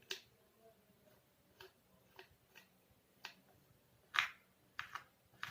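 Faint, irregularly spaced light clicks and short scratches, about eight of them, the strongest about four seconds in: hands handling and marking net fabric at a cutting table.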